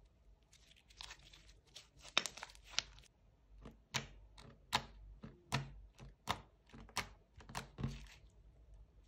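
Clear slime coloured with pink eyeshadow and lipstick being stretched, then pressed and poked with the fingertips. A few seconds of sticky crackling give way to a steady run of sharp clicking pops, about one every three-quarters of a second, as the fingers push in and pull out.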